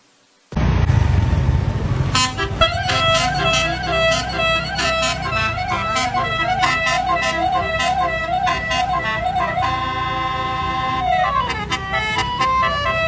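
A small bus's basuri musical horn playing a warbling, multi-tone melody over a low rumble. It starts suddenly about half a second in, and near the end the tune slides down in pitch.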